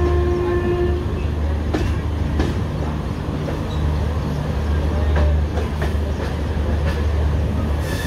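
LHB passenger coaches running on the track: a steady low rumble with scattered sharp wheel knocks over rail joints, and a short pitched tone in the first second.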